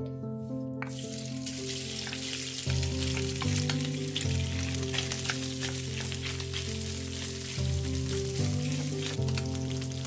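Marinated beef strips sizzling in hot peanut oil in a stainless steel pan. The sizzle starts suddenly about a second in, as the beef goes into the pan, and goes on with small scrapes and clicks as a wooden spoon stirs the strips.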